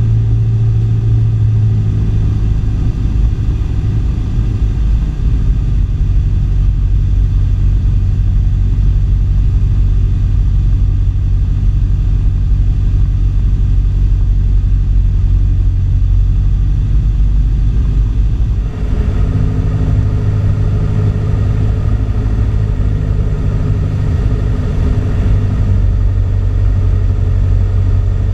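Cessna 172P's four-cylinder Lycoming engine and propeller droning steadily in flight, heard inside the cockpit. About two-thirds of the way through the drone turns brighter.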